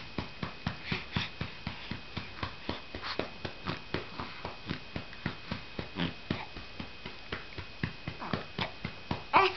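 Steady rhythmic patting on an infant's back to bring up a burp, about three pats a second. Near the end the baby gives a brief vocal sound.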